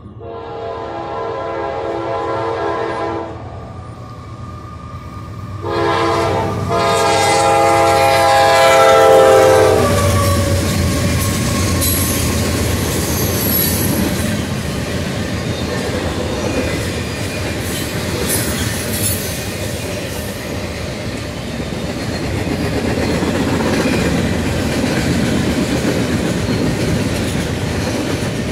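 CSX freight train passing a grade crossing. The locomotive horn sounds two blasts, a short one and then a longer, louder one that drops in pitch as it ends, followed by the steady rolling noise and clickety-clack of freight cars going by.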